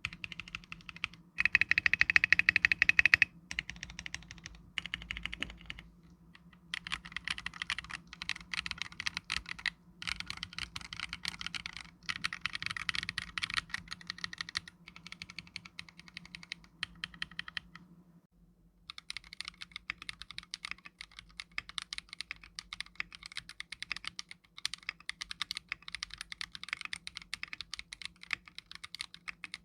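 Typing on a custom mechanical keyboard with an acrylic housing, Bingpo (冰魄) switches, clear stabilizers and clear Akko keycaps: fast runs of key clicks broken by short pauses. The loudest run comes about two seconds in, and there is a longer pause a little past the middle.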